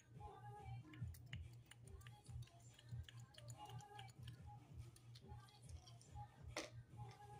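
Near silence: faint background music over a steady low hum, with scattered light ticks and clicks.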